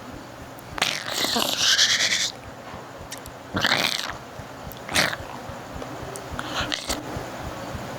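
A person making animal-like sound effects with their voice: a long breathy cry about a second in, then shorter cries around four, five and seven seconds.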